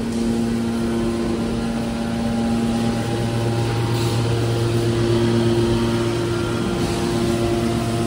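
Hydraulic power unit of a scrap metal shear baler, its electric motor and pump running: a steady drone with a low hum and a few held tones. The low hum grows stronger about three seconds in.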